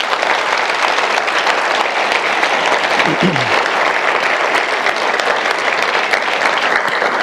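Audience applauding steadily, with a brief falling call from one voice about three seconds in.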